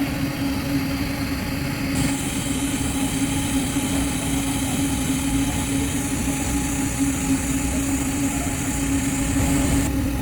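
TIG (argon) welding arc on super duplex stainless steel: a steady buzzing hum with a crackle and a hiss. The hiss shifts about two seconds in and again near the end.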